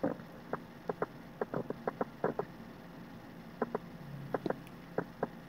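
Faint, irregular light ticks, two or three a second with a short pause just before the middle, as a small round watercolour brush dabs short feathery strokes onto the paper.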